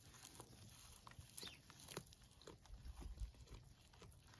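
Near silence with faint scattered taps and scuffs of baby goats' hooves scrabbling on rock and straw as they climb.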